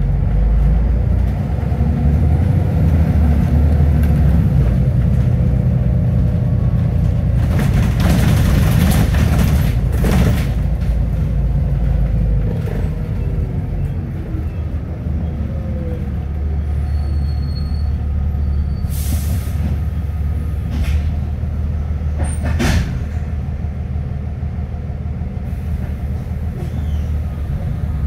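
Double-decker bus heard from its upper deck while driving, its engine a steady low drone under road noise and body rattles. Bursts of hiss come about a third of the way in and again about two-thirds through, and a sharp clunk follows shortly after the second.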